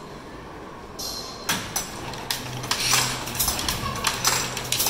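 Power loom starting up: a short hiss about a second in, then the mechanism's clatter begins and runs on as rapid, irregular knocking over a steady low hum.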